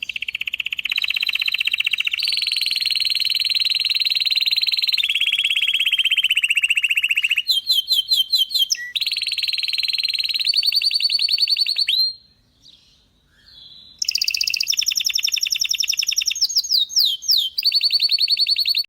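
Domestic canary singing: long, fast rolling trills held for several seconds each, stepping from one pitch to another, with sweeping notes in between and a pause of about two seconds near the middle.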